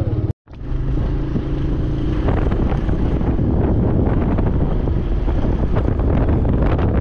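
Motorcycle engine running while riding, with wind buffeting the microphone; the wind grows rougher after about two seconds.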